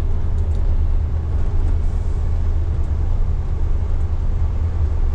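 Setra 309 HD bus on the move, heard from the driver's seat: a steady low engine and drivetrain rumble with road noise.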